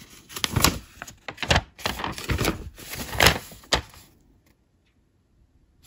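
Paper and plastic rustling as a printed bead-embroidery pattern sheet is handled and turned, a rapid run of crinkles and taps lasting about four seconds.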